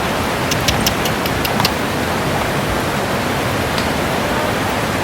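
Steady rushing of flowing water, a stream or waterfall, with several sharp clicks in the first two seconds.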